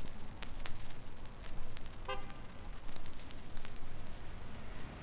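City street ambience: traffic noise with scattered sharp clicks and taps, and a short car horn toot about two seconds in. Near the end it settles into a quieter, steadier hiss.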